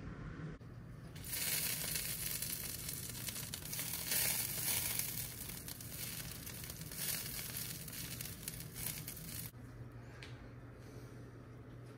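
Fat sizzling and spitting as it melts in a hot cast-iron skillet. The sizzle starts about a second in and stops suddenly a couple of seconds before the end, leaving a quieter stretch with a few light clicks.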